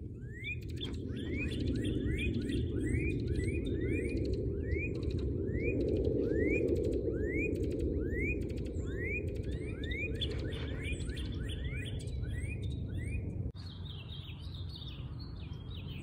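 Northern cardinals singing: a long series of short rising slurred whistles, about two a second, with a second bird's notes overlapping, the male and female dueting, over a steady low rumble. About 13 seconds in, it cuts to a different bird's quicker, higher-pitched song.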